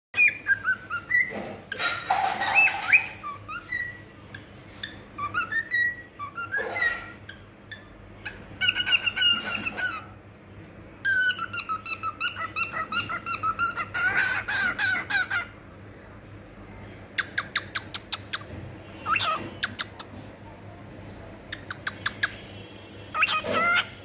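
A cockatiel whistling and chattering its song: a string of whistled phrases gliding up and down in pitch, with a long run of quick repeated notes about halfway through.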